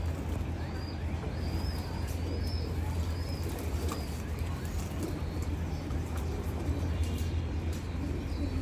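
Domestic pigeons cooing and flapping their wings at their bath, with a run of short, high, evenly spaced chirps in the first few seconds and again near the end. A steady low hum runs underneath.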